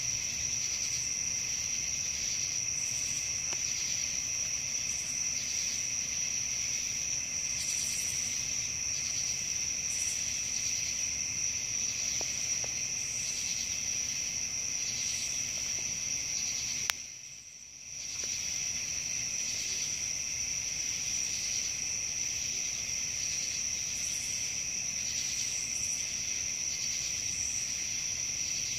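Night insects chorusing, a steady high-pitched trill with a fainter lower band beneath it. The sound cuts out abruptly with a click for about a second roughly two-thirds of the way through, then resumes.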